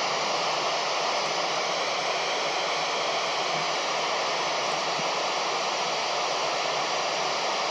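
Loud, steady FM static hiss from a Kenwood handheld 2-metre radio with its squelch open, in a gap where the ISS's FM voice downlink carries no speech; the hiss starts and stops abruptly.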